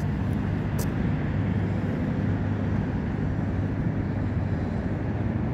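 A steady low mechanical hum over a wash of outdoor background noise, with no change in level.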